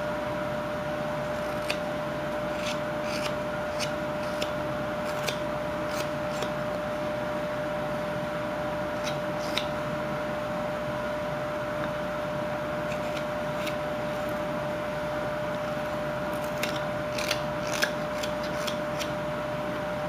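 Whittling knife taking small cuts in a wooden carving: scattered light clicks and scrapes as the blade shaves chips, in short runs with pauses, over a steady background hum with one constant tone.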